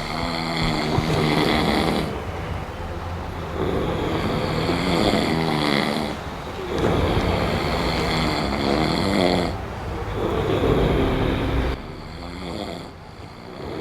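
A person snoring, about four drawn-out snores of around two seconds each with short pauses between, fading lower near the end.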